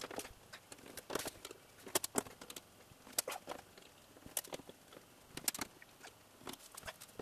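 Scattered light clicks and taps, about one small cluster a second, from a hand tool and screws working on the sheet-metal rear panel of a washing machine as the panel screws are undone.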